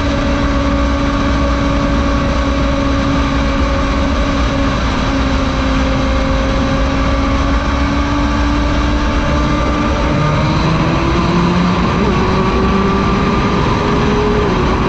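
2017 Honda CBR1000RR SP1's inline-four engine running at high speed under heavy wind noise. It holds a steady note, then rises in pitch as the bike accelerates from about ten seconds in, with a brief dip in pitch near the end.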